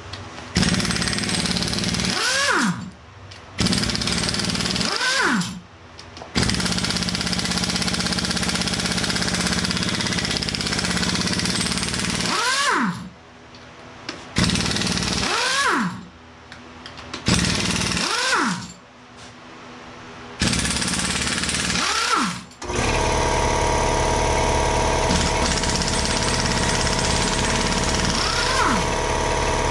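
Pneumatic impact wrench hammering on cylinder head bolts of a Ford V8 engine, in six runs, each ending in a falling whine as the air motor spins down. About 23 s in, an air compressor starts and runs steadily.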